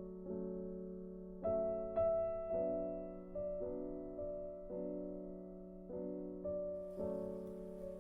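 Background music: soft piano playing gentle chords at a slow, even pace, each note struck and left to fade.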